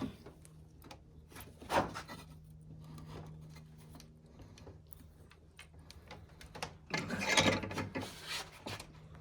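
Metal workshop noises from a bench vise pressing push-lock fittings into an aluminium air-suspension manifold: a sharp knock about two seconds in, then a rubbing, rasping stretch near the end as the vise is worked.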